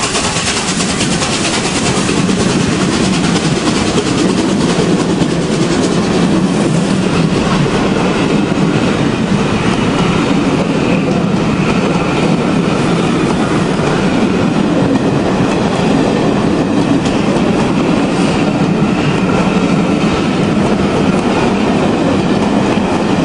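BR Standard Class 8P steam locomotive 71000 Duke of Gloucester running close past a station platform, followed by its passenger coaches rolling by with a steady, loud clatter of wheels on the rails.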